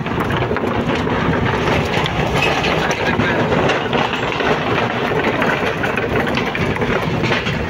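Car driving across a wooden-planked steel truss bridge, heard from inside the car: the engine runs steadily while the tyres rumble and clatter over the deck boards.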